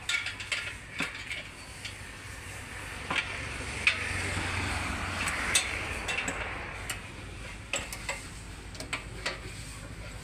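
Light metallic clicks and clinks from hands and tools working the injector fittings of a stopped 9 HP diesel weeder engine. A soft hiss swells up a few seconds in and fades away again.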